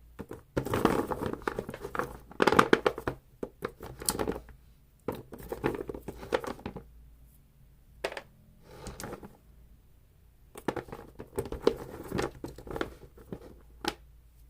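Paper and packaging rustling and crinkling as craft supplies are handled and sorted by hand, in several bursts with short quiet pauses between them.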